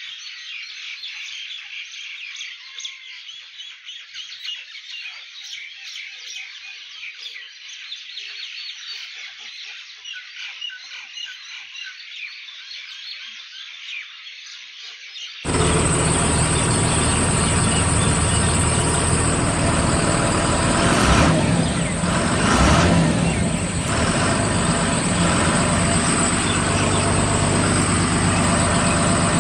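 Birds chirping, then about halfway through an abrupt cut to a much louder vehicle engine running steadily.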